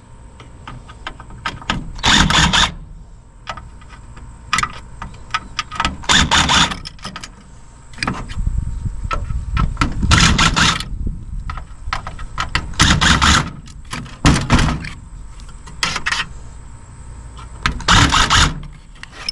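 Dismantling a cassette deck: a run of clicks, knocks and rattles from its parts, broken by about six louder noisy bursts, each lasting under a second.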